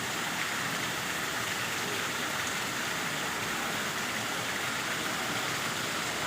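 Koi pond waterfall: water pouring and splashing steadily into the pond in an even rush.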